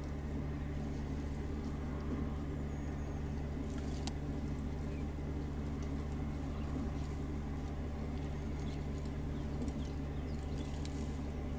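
A vehicle engine idling steadily, a low even hum, with a few faint sharp ticks above it about four seconds in and near the end.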